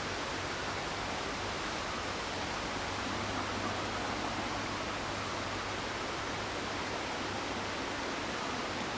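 Steady, even hiss with a faint low hum underneath; no bird calls are heard.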